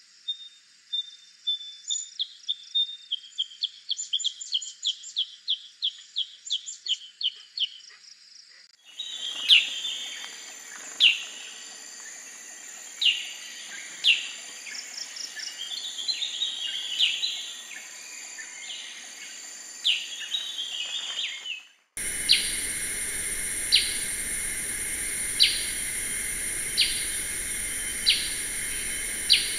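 Black-headed bulbul calls from three recordings joined one after another: first a quick run of high notes, then a mix of chirps and short whistles, then single sharp calls about every one and a half seconds over a steady hiss.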